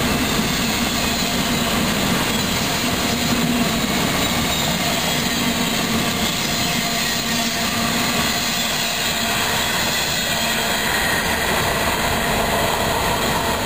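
Freight train cars rolling past on the rails, a steady even noise of wheels on track.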